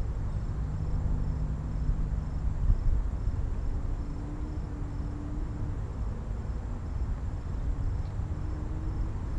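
Wind rumbling on the microphone, with an insect's high chirp repeating steadily two or three times a second and a faint low hum that drifts slightly up in pitch.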